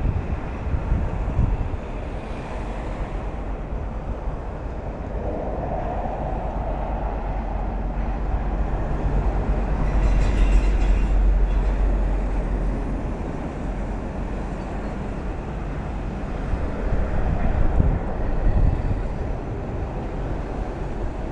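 Steady low rumble of vehicle and road noise on a toll road, swelling louder about halfway through before settling back.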